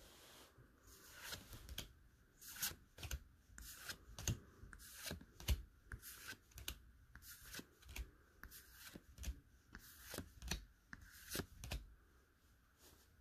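Pokémon trading cards from a freshly opened booster pack being flipped through by hand, each card slid off the front of the stack and tucked behind with a light snap or swish. The strokes come about one to two a second, with the loudest near the middle.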